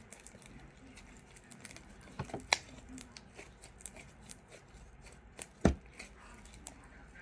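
Fluffy shaving-cream slime being squeezed and stretched by hand: sticky crackling and clicking, with two louder pops, one about two and a half seconds in and one near six seconds.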